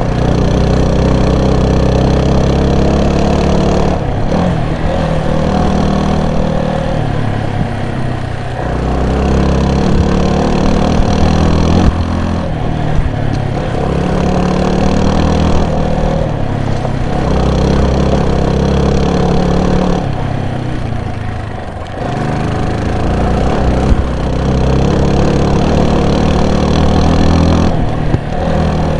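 Vehicle engine running under load, its revs dropping and rising again every few seconds, as on a drive along a forest road.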